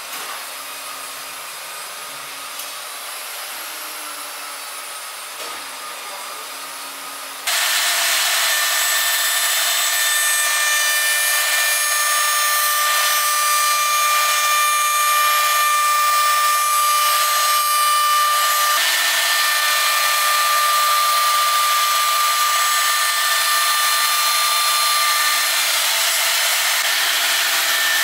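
A quieter steady machine hum, then about seven seconds in a sudden jump to the loud, steady whine of the Lee Hyun multi-wood machine's router spindle running as it machines a thick solid-wood tabletop; the pitch of the whine shifts a couple of times in the second half.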